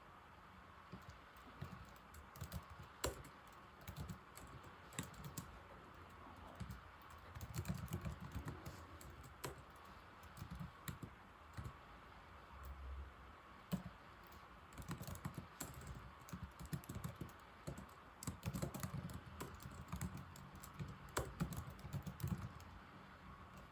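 Typing on an old laptop keyboard: bursts of rapid key clicks with short pauses between them.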